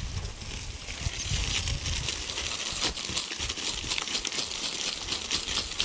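Water from a garden hose spattering onto tilled soil in a vegetable bed: a steady crackling patter, with a low rumble underneath.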